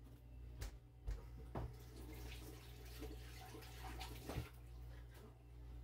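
Faint water running at a sink over a steady low hum, with a few soft knocks and clunks.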